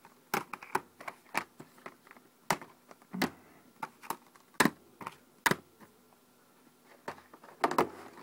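Plastic DVD and Blu-ray cases being handled, shuffled and set down on a wooden table: irregular clicks and knocks, with a lull about six seconds in and a cluster of knocks near the end.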